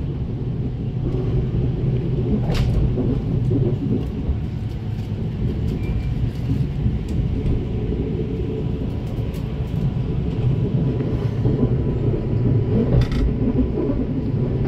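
S-Bahn train running along the track, a steady low rumble heard from inside the carriage, with a couple of brief clicks.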